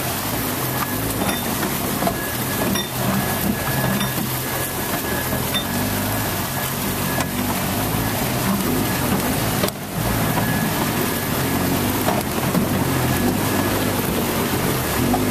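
Jeep Wrangler engine running at low speed in the cab, with water sloshing and splashing around the tyres as it drives through a flooded trail.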